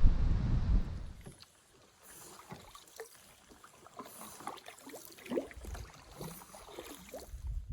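Water lapping and dripping around a canoe in small irregular splashes and ticks, after a gust of low wind rumble on the microphone in the first second or so.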